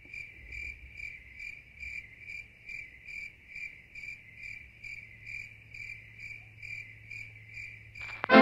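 A cricket chirping steadily, about two and a half short chirps a second, over a faint low hum. Music cuts in suddenly near the end.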